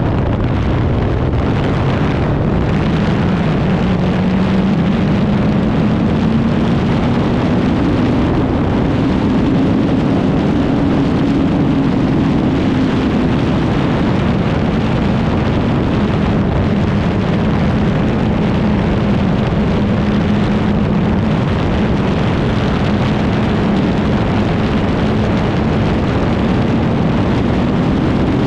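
Kawasaki Z1000 R's inline-four engine pulling under acceleration at highway speed, its pitch rising over the first dozen seconds and then holding steady. Heavy wind rush from riding fast covers it.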